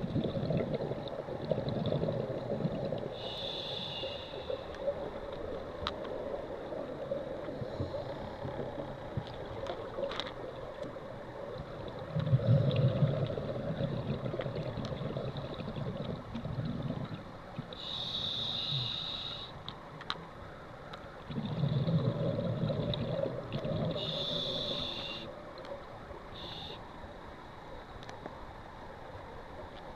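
A scuba diver breathing underwater through a regulator: a few short hisses as air is drawn in, and long bubbling rumbles as exhaled air streams out, twice lasting several seconds.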